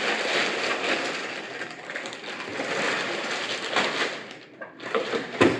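Plastic packing wrap rustling and crinkling as it is handled and pulled off a vinyl cutting plotter, with a sharp knock near the end.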